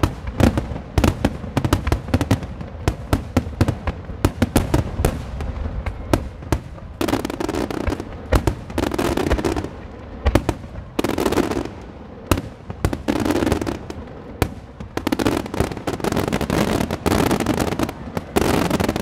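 Starmine fireworks barrage: a rapid run of shell bursts for about the first six seconds, then about seven stretches of dense crackling, each around a second long, with booms between, from crackling gold stars bursting in the sky.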